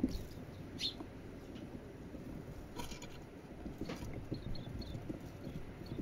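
Silvereyes pecking at a seed cake on a wooden feeder: irregular soft taps and clicks of beaks on seed and wood. A few short, faint high chirps come about two-thirds of the way through.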